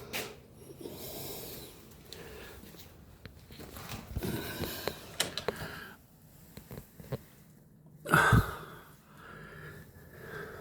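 Breathing of a person filming close to the microphone, with scattered small clicks and knocks of handling and movement in a small room, and a louder rush of noise about eight seconds in.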